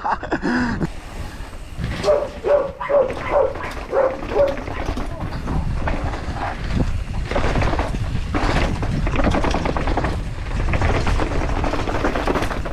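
A mountain bike is running fast downhill, with wind buffeting the rider's camera microphone and the bike jolting and rattling over the ground. A dog barks several times in quick succession, about two to four seconds in.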